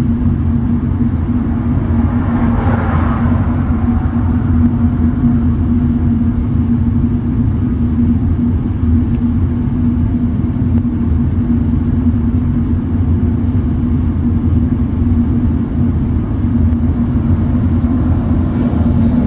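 Jet engines of a three-engined FedEx cargo jet at taxi idle: a steady low rumble with a constant hum, swelling briefly about two seconds in and again near the end.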